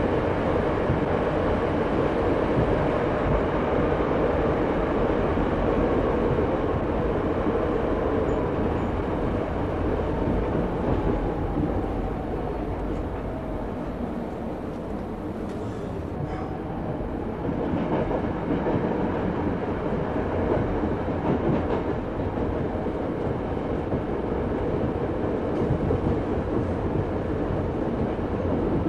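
Diesel train rumbling on the rails. Near the middle a faint whine falls in pitch while the sound eases for a few seconds, then the rumble picks up again.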